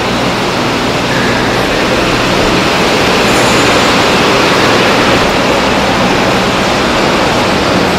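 Steady, loud rushing noise with a faint low hum under it: the ambient noise of a large factory hall.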